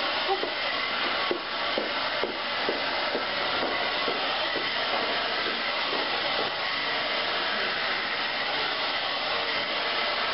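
Handheld hair dryer running steadily, a constant rush of air with a faint steady whine, blowing through hair on a round brush.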